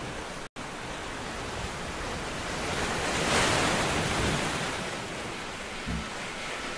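A rush of noise like surf, swelling to its loudest about three and a half seconds in and then slowly easing off, with a brief cut-out about half a second in.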